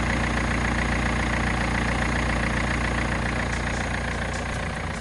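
BMW M47 four-cylinder common-rail diesel engine idling steadily.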